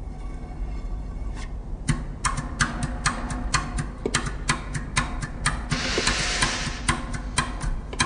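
Intro of a pop song's backing track, building in level over the first second or so: a steady low drone under a run of sharp clicking percussion hits, about three to four a second, with a hiss swelling up for about a second just past the middle.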